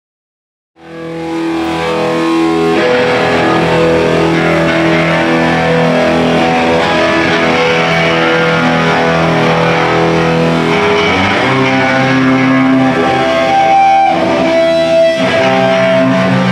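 A live rock band playing loudly, with electric guitar to the fore and bass under it, cutting in abruptly about a second in after silence.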